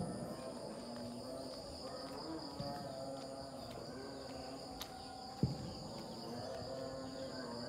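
Insects droning steadily in two high, even tones, with faint distant voices beneath and a single thump about five and a half seconds in.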